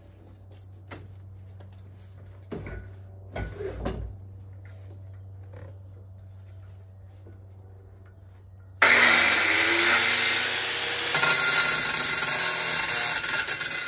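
A couple of knocks from handling, then about nine seconds in a grinder starts up suddenly and runs loud, grinding through the metal casing of a small compressor.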